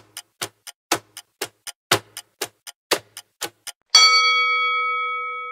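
Countdown clock ticking sound effect, about four ticks a second, alternating loud and soft. About four seconds in, a bell-like chime rings out and slowly fades, marking the reveal of the correct answer.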